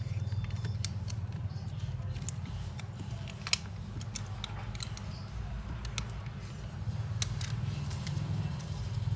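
Scattered light clicks and taps of small tools and parts being handled during a phone repair, with one sharper click about three and a half seconds in, over a steady low hum.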